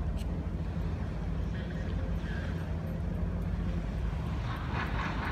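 Superyacht's engines or thrusters running with a low steady drone as it manoeuvres at the quay; voices come in near the end.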